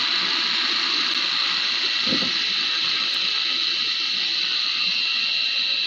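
Food processor motor running steadily with a high whine, spinning a batch of basil pesto.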